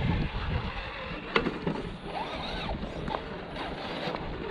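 1/10-scale RC crawler's electric motor whining up and back down briefly, about two seconds in. A few sharp clicks sound about one, three and four seconds in, and low wind rumble sits on the microphone at the start.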